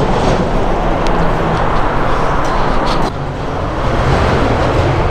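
Steady roar of passing motorway traffic, easing a little about three seconds in.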